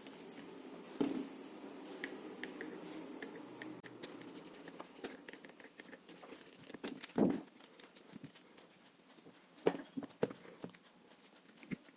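Light clicks and taps of small plastic parts and screws being handled as robot-car wheels are fitted onto their shafts, with a few louder knocks about seven and ten seconds in.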